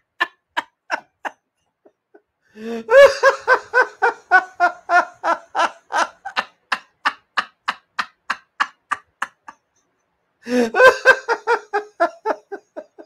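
Hearty adult laughter in a steady run of short 'ha' pulses, about three a second, breaking into louder outbursts about three seconds in and again near eleven seconds.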